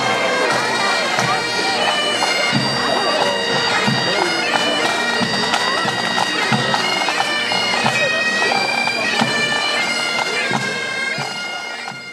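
Pipe band's bagpipes playing a tune over their steady drones, with a low beat under it. The music fades out near the end.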